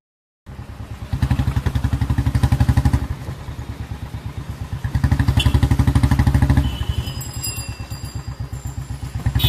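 Royal Enfield single-cylinder engine running through a Punjabi long bottle silencer. It gives a steady, evenly pulsing exhaust beat at idle and is revved up twice, settling back to idle after each rev.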